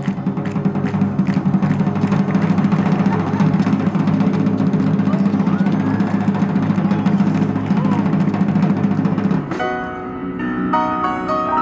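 Drums played in a dense, rolling beat with heavy low drums, cutting off suddenly about nine and a half seconds in; a melody of separate pitched notes follows near the end.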